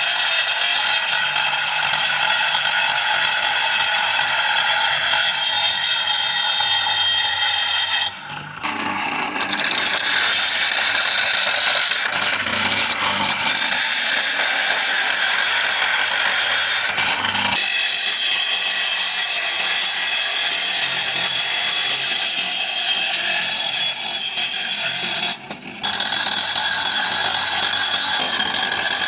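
Grinding machine running against the steel of an axe head during finishing, a steady whine with several high tones, briefly cut off three times as the work is lifted or the tool paused.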